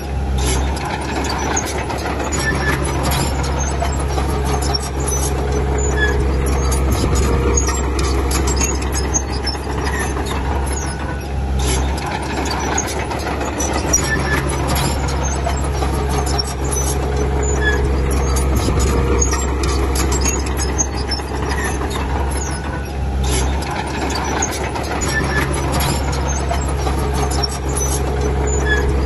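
Crawler bulldozer's diesel engine working under load, its note shifting in a repeating cycle about every eleven seconds, with scattered high squeaks and clinks of metal.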